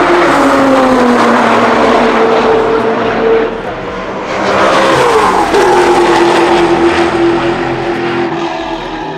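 Time attack race cars passing at speed on the straight, engines loud at high revs. A second car comes by about four seconds in, and its engine note drops sharply as it passes, then fades.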